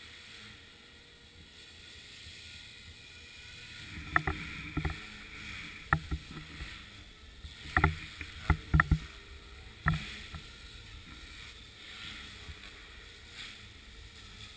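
Radio-controlled helicopter's rotor whirring steadily, its pitch shifting slightly, with a cluster of sharp knocks between about four and ten seconds in.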